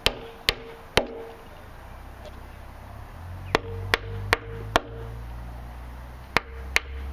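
Hammer tapping glued 3/16-inch wooden dowel pegs flush into drilled screw holes in a speaker cabinet: nine sharp strikes about 0.4 s apart in three bursts, each leaving a short ring, over a low steady hum.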